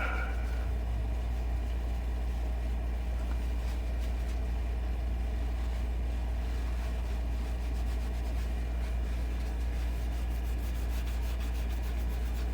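Steady low background hum, even throughout, with no distinct event standing out.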